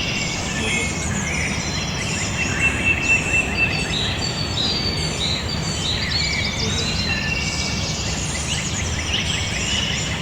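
Morning chorus of several songbirds singing at once: overlapping whistles, trills and quick chirps, over a steady low background rumble.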